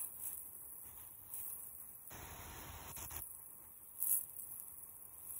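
Garden sprinkler spraying water over vegetable beds: a soft hiss of spray that swells for about a second midway as the stream sweeps past. A faint steady high-pitched background runs underneath.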